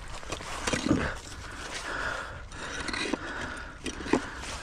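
A magnet-fishing rope hauled in hand over hand while the magnet and its catch, a rusty iron stove grate, knock and scrape against the concrete canal edge. There are sharp knocks about a second in and again near the end, with scraping and rustling between them.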